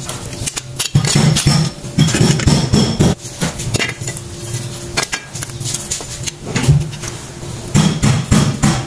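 Metal clinking and clatter of worn drum brake shoes and their lever hardware being handled on a concrete floor, with a screwdriver working at the parking-brake lever: many short, sharp knocks and clinks in quick succession.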